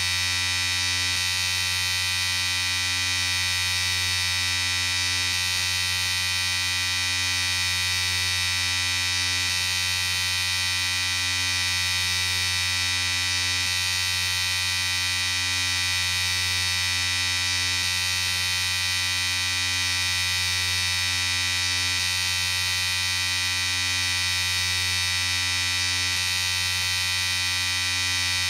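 Electric shaver running with a steady, unbroken buzz.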